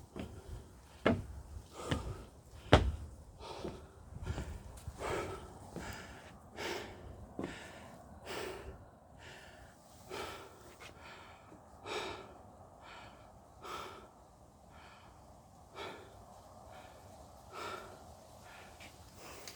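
A hiker breathing hard and audibly while climbing a mountain trail, one breath about every one to two seconds, slowing toward the end. There are a few sharp knocks in the first three seconds.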